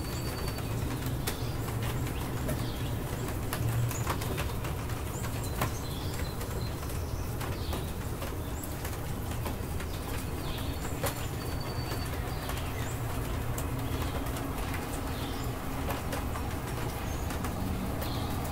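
Short bird chirps over a steady background hiss with many scattered sharp ticks.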